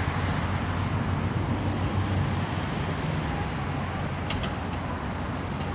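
Outdoor city ambience: a steady low rumble of engines and traffic, with a few faint clicks about three quarters of the way in.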